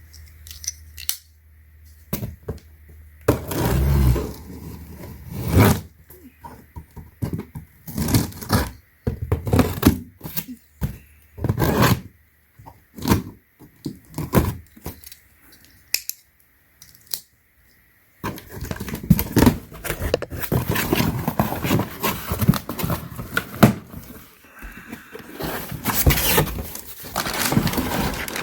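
A keyboard's product box being handled and torn open: scrapes, thunks and tearing, with separate sharp knocks at first, then denser rustling and crackling of packaging about two-thirds of the way in.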